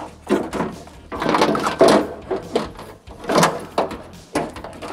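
Metal window regulator and motor assembly scraping and clattering against the inside of a car door as it is fed into place, in several irregular bursts.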